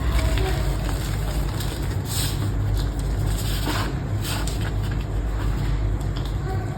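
Gym chalk being crushed into crunchy crumbles, with short, irregular crackling crunches every second or so over a steady low rumble.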